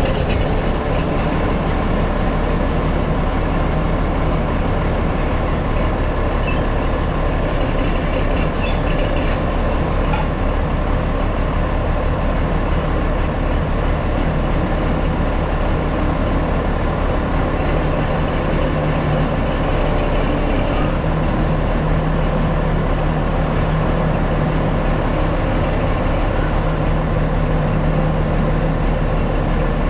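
Farm tractor engine running steadily, heard up close from the tractor's dash.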